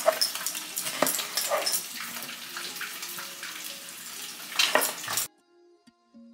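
Red snapper sizzling and crackling in hot frying oil, with a few sharper knocks of a knife on a wooden cutting board. It cuts off suddenly about five seconds in, leaving faint music.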